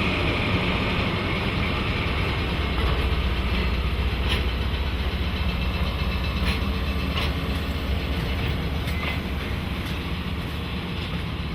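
JNR DE10 diesel locomotive running on the line, its engine a steady low drone, with wheels clicking irregularly over rail joints as the train rolls past.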